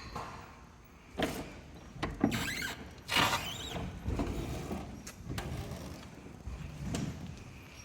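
A Volvo sterndrive being swung to one side by hand: a string of clunks and squeaky, scraping creaks from the drive and its mounts.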